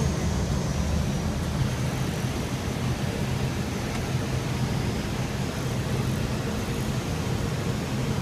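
Steady low rumble of an Airbus A319's flight-deck noise on approach: airflow and engines heard from inside the cockpit.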